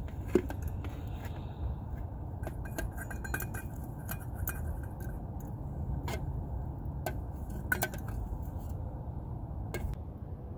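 Metal clinks and scrapes from a coffee percolator pot and its lid as beef stew is poured out of it into a plastic container, irregular sharp clinks over a steady low rumble.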